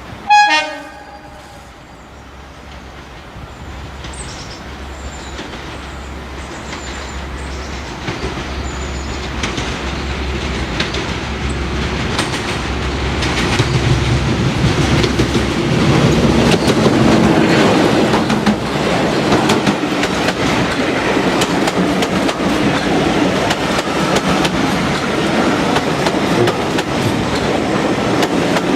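A diesel locomotive gives one short horn blast, the loudest sound here. It then comes on under power, the engine and the clatter of its wheels growing steadily louder for about fifteen seconds and staying loud as it passes.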